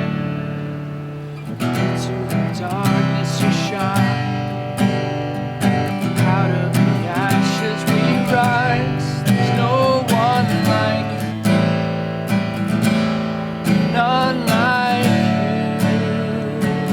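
Acoustic guitar strumming chords, with a voice singing a worship song over it from about two seconds in.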